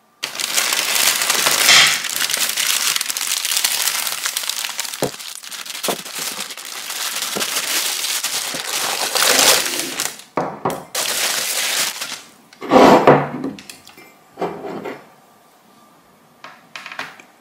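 Plastic wrapping crinkling and rustling as a parcel is unwrapped by hand, for about twelve seconds. Then come a few separate knocks as stoneware cups are handled on a table, the loudest about thirteen seconds in.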